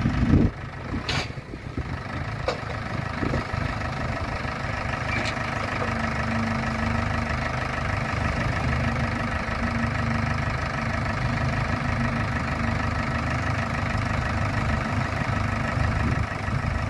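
Farm tractor diesel engines running steadily, with a few sharp clicks in the first few seconds, as the tractors work to free a red loader tractor stuck in a hole.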